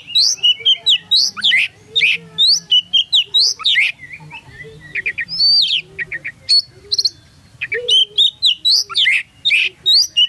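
Oriental magpie-robin (kacer) singing loudly at close range: quick runs of clear whistled notes that sweep up and down, with a short lull midway before the song picks up again.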